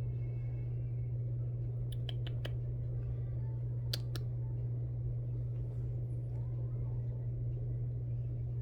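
Steady low hum with a few short clicks about two and four seconds in.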